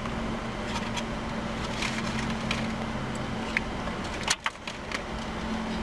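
Chewing and eating noises from a bite of veggie burger, with small crackling clicks and a sharp double click about four seconds in, over a steady low hum.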